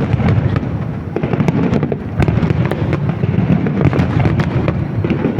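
Aerial fireworks bursting in a rapid, continuous barrage: many sharp cracks over a steady low rumble of booms, as in a finale-style salvo.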